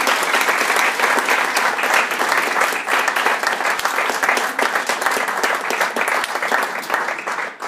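Audience applauding, a dense steady patter of clapping that fades out near the end.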